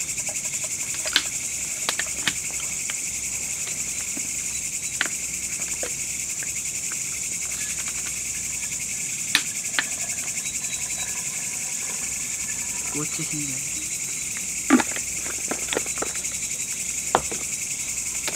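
Crickets and other night insects chirping in a dense, steady, shrill chorus, with a few short sharp clicks and knocks scattered through it.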